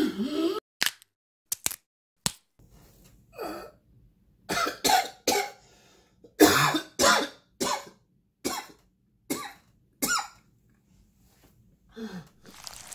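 A man coughing over and over in short separate coughs, about a dozen of them, with a few faint clicks before the coughing starts.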